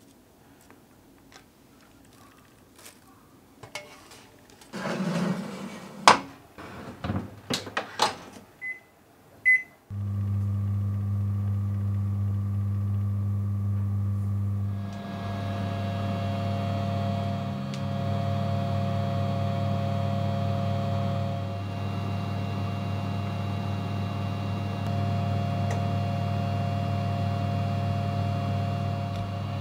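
A few knocks and clunks as the baking tray goes into the oven, two short beeps from the oven's controls, then the oven starts and runs with a steady electric hum and fan noise.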